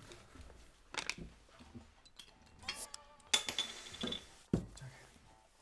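Glass beer bottle clinking as it is taken out from behind a bar, with a short ringing clink about two thirds of the way in, then a knock as the bottle is set down on a wooden counter.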